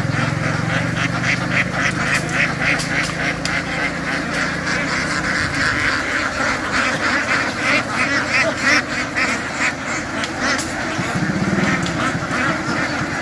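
Ducks quacking rapidly and continuously, many calls overlapping. A low motor hum runs under them for about the first five seconds and then stops.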